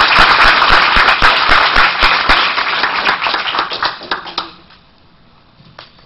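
Audience applauding, the clapping thinning out and stopping about four and a half seconds in.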